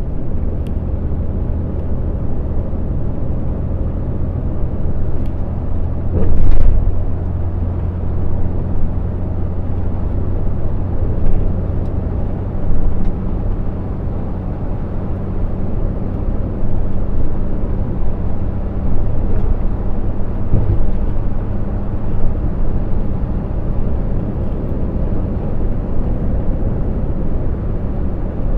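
Steady low drone of a truck's diesel engine and tyre noise, heard inside the cab while cruising on the highway. A brief louder thud comes about six seconds in.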